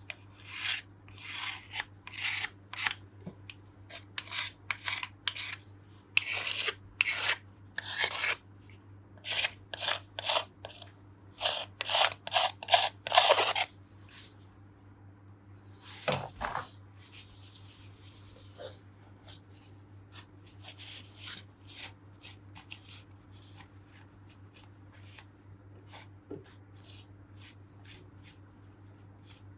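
Old gasket material being scraped off the aluminium engine case gasket surface: a run of quick, rasping scraping strokes for the first half, then a single knock and quieter intermittent scraping and handling.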